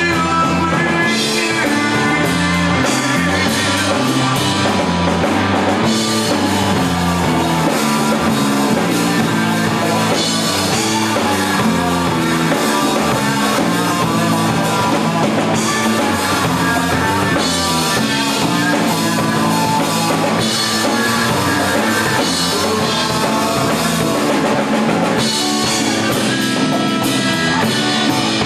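Live rock band playing: electric lead guitar over bass guitar and drum kit, at a steady, loud level.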